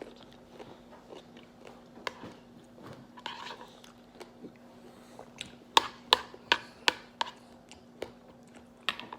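Close-up eating sounds: fruit being chewed and bitten, with a quick run of about five sharp clicks a little past halfway.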